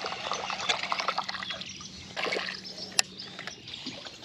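Water trickling and dripping with light sloshing, a dense patter of small drips. One sharp click comes about three seconds in.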